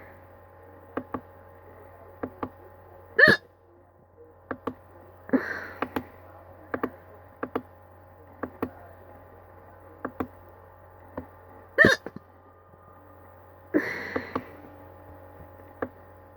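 Repeated hiccups at irregular intervals, mostly short and sharp, with a few much louder voiced ones about three seconds and twelve seconds in.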